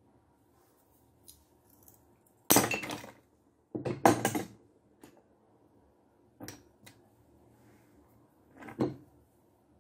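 Metal hand tool and brick fragments clattering and knocking on a cluttered workbench. There are two loud bursts of clatter a few seconds in, then a few lighter knocks.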